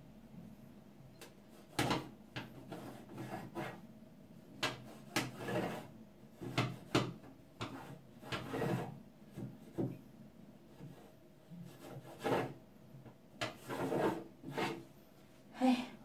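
A cloth scrubbing the plastic lining inside a freezer compartment in short, irregular strokes, with a few sharp knocks, starting about two seconds in.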